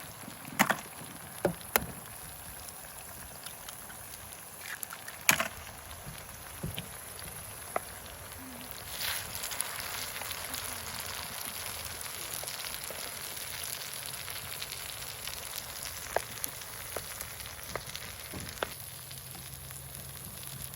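A few sharp clicks and knocks, then about nine seconds in a steady sizzle starts and holds: food frying in a pan over an open fire.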